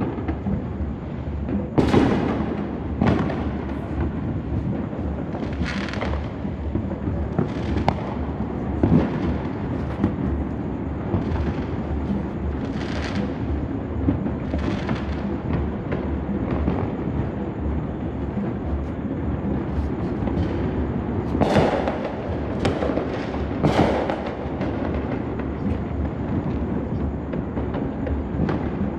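Many fireworks going off at once across a neighbourhood: a continuous rumble and crackle of distant bangs, with louder single bursts every second or two. A cluster of several loud bursts comes close together about three quarters of the way through.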